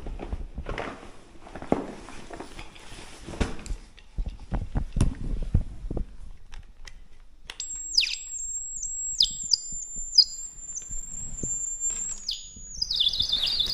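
Footsteps and scuffs on a gritty floor, then from about halfway a high-pitched electronic whine from a handheld EMF meter that dips sharply in pitch several times. Near the end it drops to a lower, wavering tone. The meter is picking up a continuous electromagnetic field.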